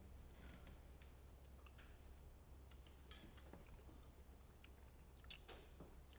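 Near-silent room tone with a steady low hum, a few faint clicks, and a short hiss about three seconds in.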